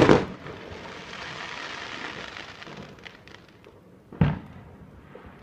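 Fireworks going off: a loud bang at the start, a couple of seconds of crackling, then another bang about four seconds in.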